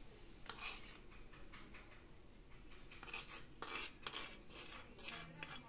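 Faint clinks and scrapes of a small spoon against a bowl and glass as soaked seeds are spooned out: a light tap about half a second in, then a run of quick clinks from about three seconds in.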